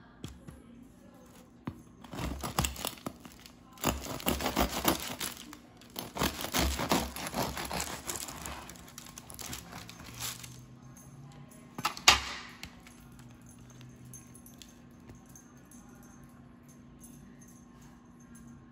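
Serrated bread knife sawing through the hard crust of a freshly baked loaf of homemade French bread, in several bouts of rasping strokes over about eight seconds. A single sharp knock follows about twelve seconds in.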